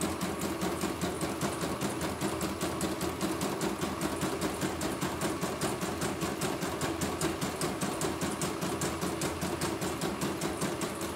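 CNY computerised embroidery machine stitching, its needle bar cycling in a rapid, even rhythm without a break. The steady motion is the sign of a machine running smoothly with its new needle bar bracket.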